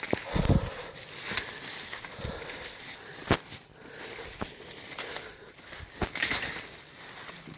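Footsteps through brush and leaf litter, with irregular crackles and sharp snaps of twigs. A dull thump about half a second in is the loudest sound.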